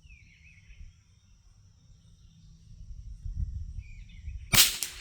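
A single .22 LR rifle shot from a Brno Model 1, sharp and sudden about four and a half seconds in, over the steady high-pitched drone of insects.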